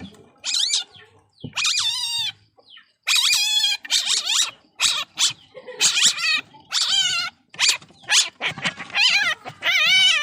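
Baby civet calling: a run of about a dozen high, wavering squeals, each under a second long, with short gaps between them.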